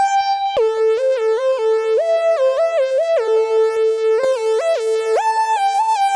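A bright synthesizer lead playing a quick stepping melody in the mid register, about four notes a second, with a short break about half a second in.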